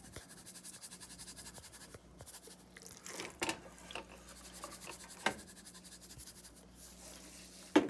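Seasoning-salt shaker shaken over a raw chicken in a quick, even rattle, then a few light knocks and handling noises as the chicken is turned in a glass baking dish.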